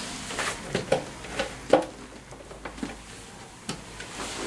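Scattered light clicks and knocks of scooter body parts and fasteners being handled during assembly, the sharpest knock just under two seconds in.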